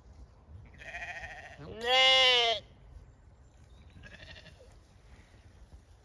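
Zwartbles sheep bleating: three wavering baas, the loudest about two seconds in and a fainter one near four seconds.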